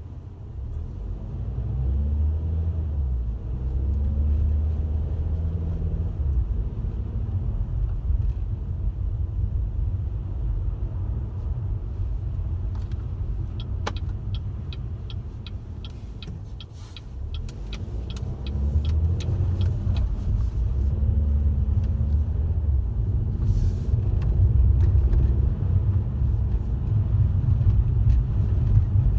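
Car driving, heard as a steady low engine and road rumble, with the engine pitch rising as it speeds up twice, near the start and again after a lull past the middle. Just before the lull comes a quick run of sharp ticks, about five a second, for roughly three seconds.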